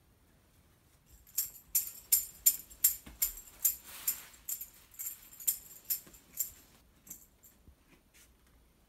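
Metal jingles of a plastic ring tambourine strapped around a Norwegian Forest Cat's body, shaking as the cat walks. The jingling comes in a run of sharp shakes about two to three a second, starting about a second and a half in and thinning out near the end.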